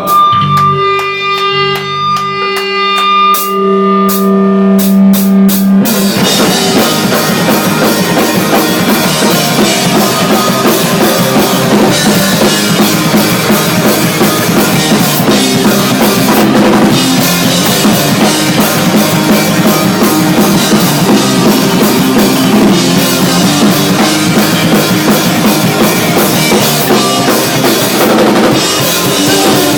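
Punk rock band playing a song live. It opens with held, ringing guitar notes and a few drum hits; about six seconds in, the full band comes in with drums and distorted guitars and keeps going at a steady loud level.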